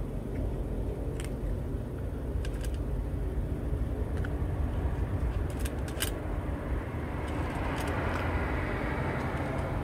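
A cat eating from a stainless-steel bowl, with small scattered clicks of licking and chewing, over a steady low rumble of road traffic that grows as a vehicle draws closer near the end.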